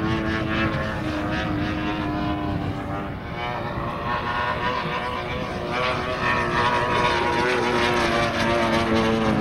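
3W 75cc two-stroke petrol engine of a large-scale RC Spitfire model in flight, its propeller drone steady and pitched. The sound dips and the pitch sags a little about three seconds in, then grows louder again as the plane passes nearer.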